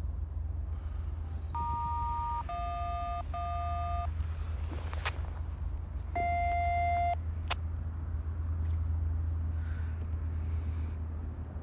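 Touch-tone (DTMF-style) beeps: three short two-note tones in quick succession, then a fourth a couple of seconds later. They play over a steady low rumble, with a sharp click just after the last tone.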